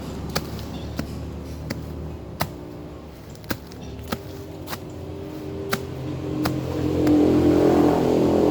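An engine running steadily, growing louder about two-thirds of the way through, with scattered sharp clicks.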